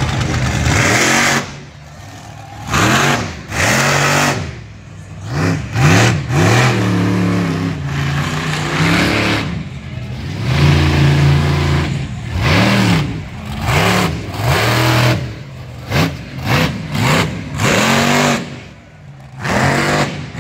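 Monster truck engine revving hard in repeated bursts, its pitch climbing and dropping again and again, with brief lulls a couple of seconds in and again near the end.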